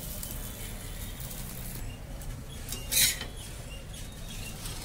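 Gas burner running under an iron tawa with a raw spinach paratha on it, a soft steady hiss and low hum, with one brief rustling noise about three seconds in.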